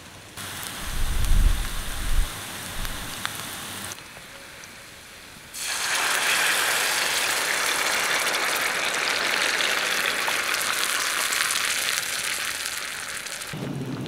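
Tomato puree poured into a hot pan of fried onions on a camping gas stove, sizzling loudly and steadily for about eight seconds before cutting off near the end. A few low thumps and knocks come first, in the opening seconds.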